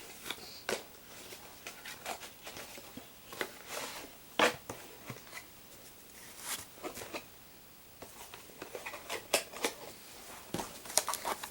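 Toy packaging being opened by hand: scattered clicks, taps and short rustles of cardboard and plastic, with one sharper knock about four and a half seconds in.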